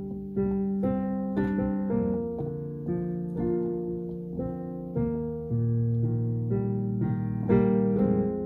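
Digital piano played solo in an improvised cover: a slow run of sustained chords over held bass notes, a new chord struck about every half second to a second.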